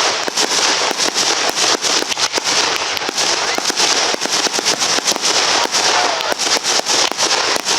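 Aerial fireworks display going off in a dense, unbroken run of loud bangs and pops, several a second, over continuous crackling.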